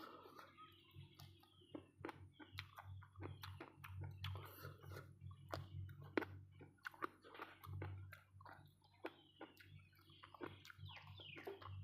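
Close-up chewing and lip smacking of a person eating, a quick, irregular run of small wet clicks and smacks.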